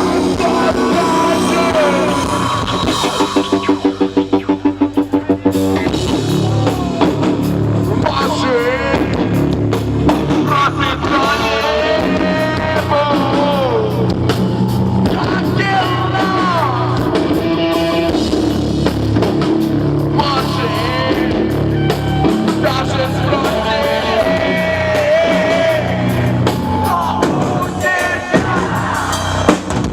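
Rock band playing live: drum kit, guitars and a sung vocal line. About three seconds in, the music pulses rapidly for a couple of seconds, about five pulses a second.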